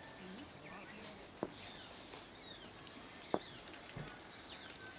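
Outdoor ambience: small birds chirping over a steady high-pitched insect drone, with a few sharp clicks about a second or two apart.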